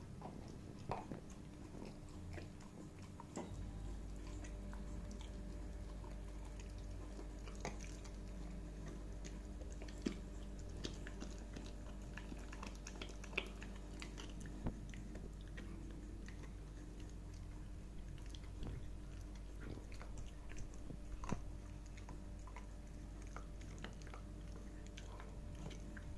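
Labrador puppy chewing a dental chew stick: irregular crunches and clicks of its teeth gnawing on the stick.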